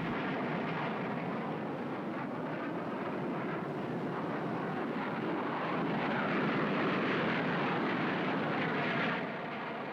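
Jet aircraft engine noise, a steady rushing that swells a little after the middle and fades away near the end, as of a military plane flying past.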